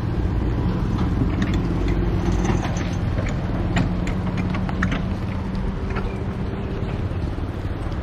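SUV engine running steadily with road and tyre noise, with a few light clicks and rattles in the middle.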